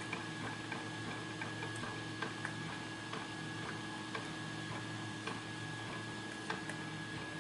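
Faint, irregular small clicks of a hook pick working the pin stack of a Chris Ahrens pin-tumbler lock, over a steady electrical hum.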